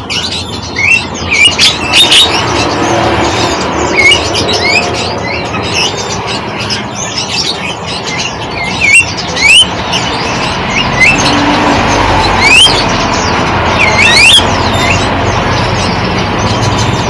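Many small birds chirping at once: quick, rising, high chirps from several birds overlapping, over a steady background haze.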